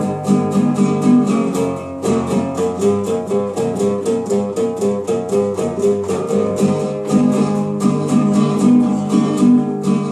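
A small guitar strummed in a quick, even rhythm, its chords changing as it plays.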